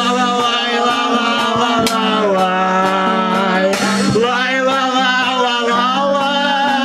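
Male voices singing a wordless 'la-la-lai' refrain in long held notes over a strummed acoustic guitar.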